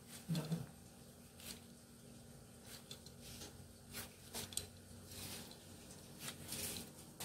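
A large kitchen knife slicing the skin off a fresh pineapple on a wooden cutting board: a string of short, faint crunchy cuts and scrapes, one every second or so.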